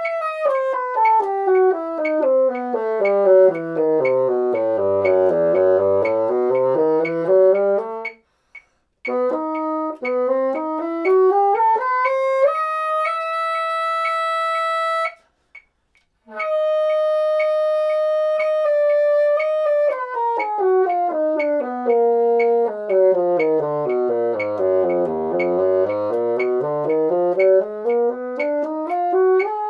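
Moosmann bassoon playing harmonic minor scales over its full range. A scale runs down step by step to a low note and back up, there is a short break about eight seconds in, then it climbs to two long held high notes around the middle, separated by a brief pause, then a second scale runs down to the low register and back up.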